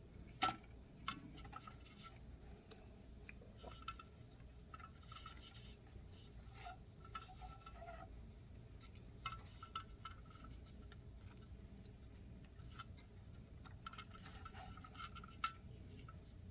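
Faint scattered clicks and light rubbing from hands working the ribbon and small parts of a Smith Premier No. 10 typewriter, with a sharper click about half a second in and another near the end.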